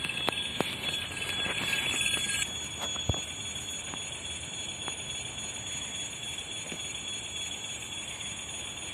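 Railway level-crossing warning signal ringing steadily, strongest over the first two and a half seconds and then fainter, with a few sharp clicks.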